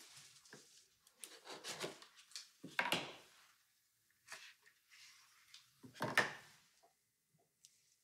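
Soft handling sounds of a cardboard gift box being opened and a leather long wallet lifted out of it: a few brief rustles and scrapes, the loudest about three and six seconds in.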